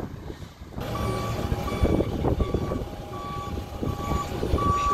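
An airport ground service vehicle's reversing alarm beeping at one pitch, roughly one beep every three-quarters of a second, starting about a second in, over a low engine rumble.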